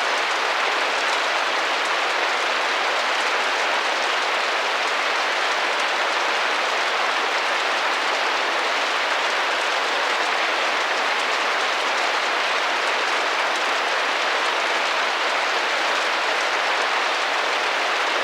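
Steady rain tapping against a glass window: an even, unchanging patter of drops with almost no low rumble.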